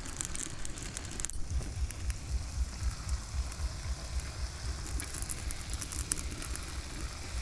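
Jalebi batter sizzling as it is piped in thin spirals into hot frying oil in a pan: a steady crackling fry, with a single sharp click about a second in. The oil is hot enough that the batter starts frying the moment it lands.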